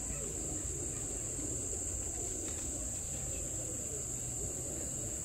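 Night insects, crickets, trilling in one steady, unbroken high-pitched chorus over a low background rumble.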